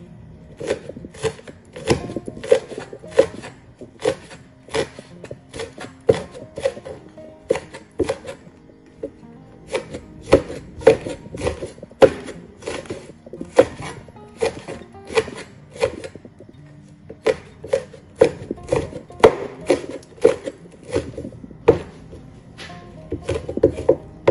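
A cleaver chopping fresh red chilies on a wooden cutting board: sharp, uneven knocks about two a second, with brief pauses about nine and sixteen seconds in. Background music plays underneath.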